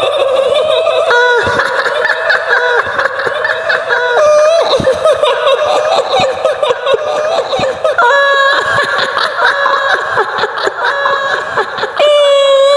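High-pitched woman's cackling laughter, the shrill 'hihihi' laugh of the kuntilanak ghost of Indonesian folklore, going on without a pause.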